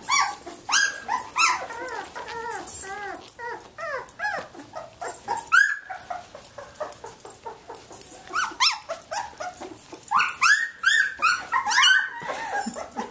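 A litter of 17-day-old Samoyed puppies crying: many short high-pitched calls, each rising and then falling in pitch, several a second and overlapping, thinning out briefly around the middle.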